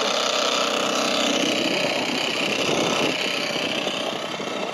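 Small outboard motor on an inflatable dinghy running steadily with its engine cover off, so the bare powerhead is heard.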